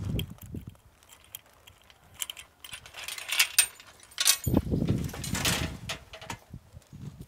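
Steel-bar gate being unfastened and pulled open by hand: metal rattling and clinking, loudest in the second half as the gate panel is dragged aside.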